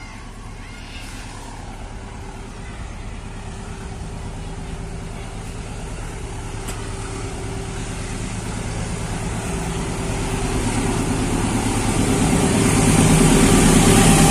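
KAI diesel-electric locomotive approaching along the track, its engine drone and running noise growing steadily louder and loudest near the end.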